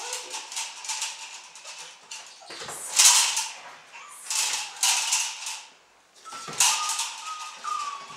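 Malinois puppy scrabbling on a concrete floor as a cloth rag is dragged across it: about four bursts of scraping and scratching. Brief high whines from the puppy near the end.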